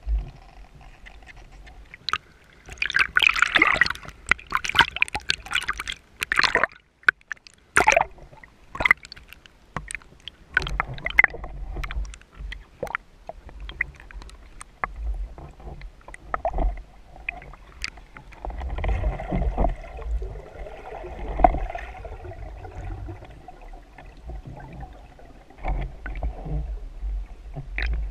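Underwater sound picked up by a speargun-mounted camera as a freediver dives: a burst of splashing and bubbles about two seconds in, lasting several seconds, then scattered sharp clicks and knocks with low rumbling water movement.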